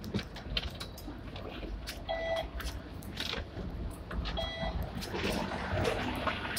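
Two short electronic beeps about two seconds apart from the Octopus card reader at a Hong Kong tram's exit, as alighting passengers tap to pay, over the tram's steady low rumble and scattered clicks and knocks.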